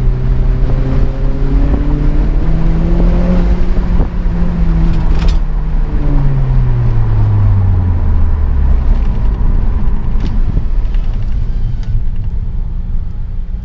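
Honda Accord's engine and exhaust during a drive: the note climbs over the first few seconds as the car accelerates, holds, then falls steadily for a few seconds as it eases off, settling into a low drone near the end.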